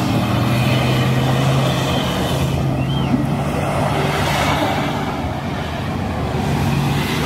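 Pickup truck engine held at steady high revs with tyres churning in mud: a truck bogged in deep mud being pulled out on a tow strap.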